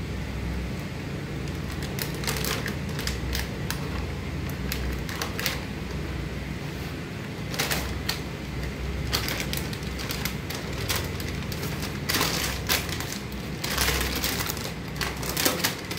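Plastic sheeting handled and crinkled by hand, with scattered small clicks and rustles that grow busier in the last few seconds, over a steady low hum.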